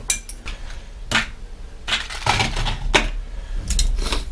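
Irregular clatter and knocks of objects being picked up and moved about on a workshop bench: about half a dozen sharp clicks and short rattles.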